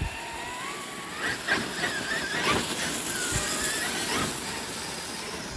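Brushless electric motor of a Traxxas X-Maxx RC monster truck whining, its pitch rising in the first second and then wavering with the throttle, while the leaf rake towed behind it scrapes and knocks through leaves and dirt.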